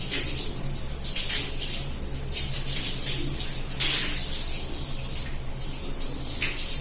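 Water from a running tap splashing over wet hair, coming in uneven gushes of hiss as the hair is worked under the stream.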